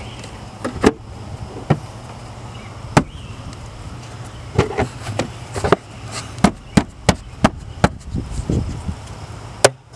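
Plastic cover of an engine-bay fuse box being handled and clipped shut: a string of sharp clicks and knocks at irregular intervals, with a louder snap near the end.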